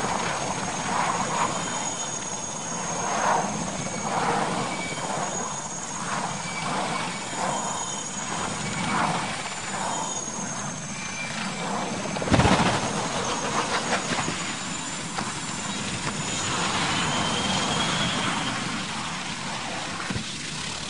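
Military transport helicopter's turbine engines and rotor running, with a loud bang about twelve seconds in and a whine rising near the end.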